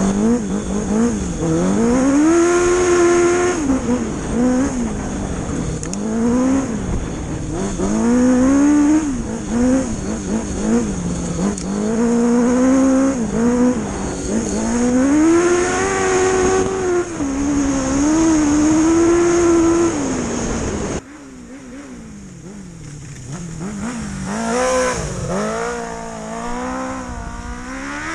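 Dirt bike engine on an off-road ride, its revs climbing and dropping again and again as the throttle opens and closes. About three-quarters of the way through the level drops suddenly, and the engine is heard quieter, still revving up and down.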